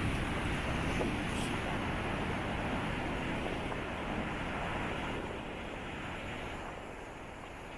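Strong wind buffeting the microphone over the wash of big surf breaking on the rocks, easing off a little after about five seconds.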